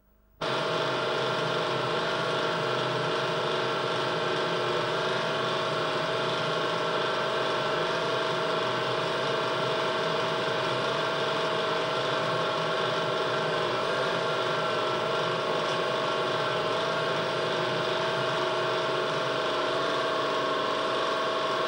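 Potter's wheel drive running at a steady speed: a constant mechanical whine with gear noise under it that starts abruptly about half a second in.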